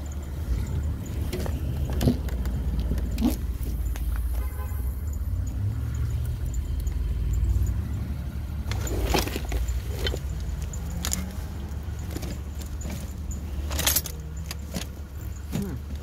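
Hand tools clinking and rattling as a tool bag is rummaged through, with a few sharper metal clanks, over a steady low rumble.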